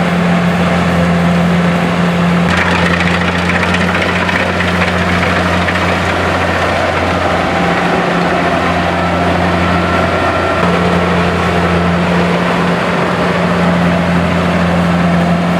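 An engine running steadily at a constant speed, a low even hum, with a dense noise over it that gets louder about two and a half seconds in.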